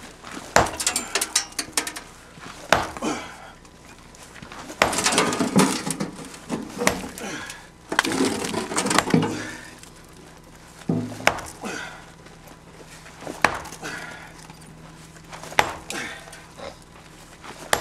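A heavy hand tool striking rock with sharp blows about every two seconds, breaking up a boulder.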